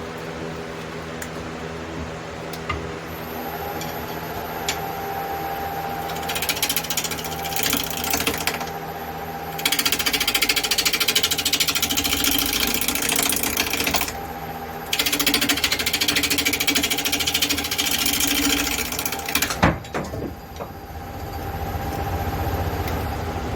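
Wood lathe running steadily while a turning gouge cuts into a spinning red oak crotch blank in three long, rough, chattering passes. A single sharp knock near the end of the last pass is the loudest moment.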